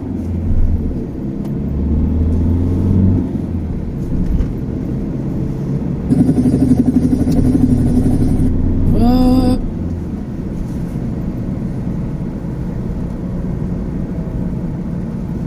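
Motor vehicles running on a street: a low engine rumble, then a louder vehicle going by about six seconds in, ending in a short rising tone just before ten seconds in, then a steady traffic noise.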